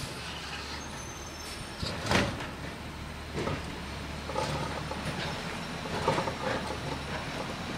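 Garbage truck driving away: a steady low engine hum that drops away about five seconds in, with several loud knocks and rattles over it, the loudest about two seconds in.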